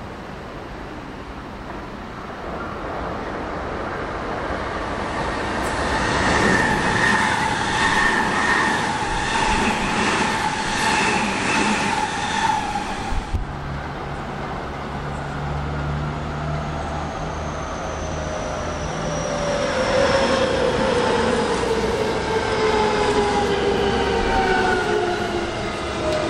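Electric commuter trains on the line. First a train goes by with a steady motor whine and wheels clacking over rail joints. After an abrupt cut comes a low hum, then a silver JR West commuter train draws near and passes close, its motor whine falling in pitch.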